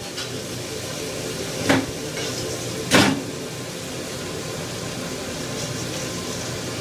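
Steady rushing background noise of a commercial kitchen, its extraction hood and gas burners running, broken by two short clatters, one just under two seconds in and a louder one about three seconds in.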